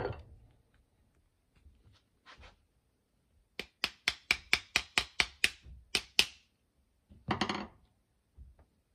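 A small ball-peen hammer tapping a 3/32 pin punch about a dozen times in quick succession, roughly four sharp blows a second, driving out the pin that holds the cocking piece to a Remington 700 firing pin. A single duller knock follows about a second later.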